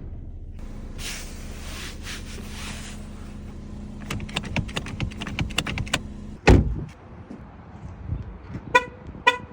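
2017 Chevrolet Sonic: a steady hum with a run of sharp clicks, then one heavy thump about two-thirds in, a car door shutting, and near the end two short horn chirps about half a second apart.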